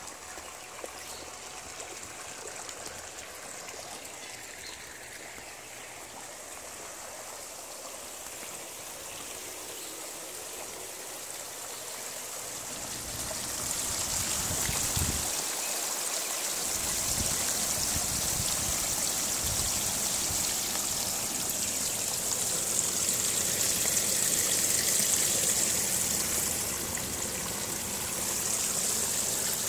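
Water trickling and splashing steadily, louder from about halfway through, where it dribbles out of the PVC spray bars of a homemade koi pond filter onto foam filter media in a plastic tub.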